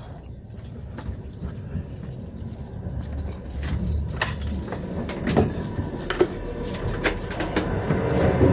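Passenger train carriage in motion, heard from inside: a steady low rumble with scattered knocks and rattles, growing louder over the second half.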